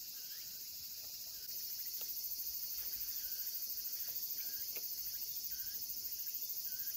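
A chorus of insects trilling, high-pitched with a fast even pulse, getting louder about a second and a half in.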